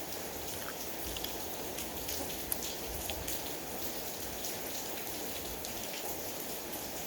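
Steady rain falling, with scattered short sharp ticks of drops landing.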